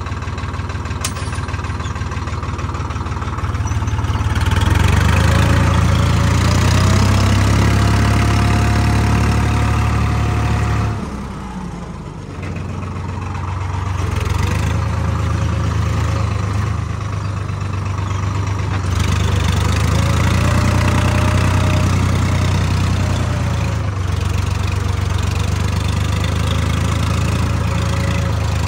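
Swaraj four-wheel-drive tractor's diesel engine running under load while pulling a chickpea planter through tilled soil. The engine note picks up about four seconds in, eases off briefly around twelve seconds, then pulls hard again, with a faint whine over the rumble.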